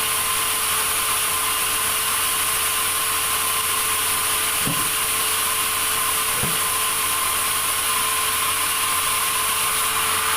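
Sawmill saw running steadily with a constant whine and hiss, with two faint knocks around the middle.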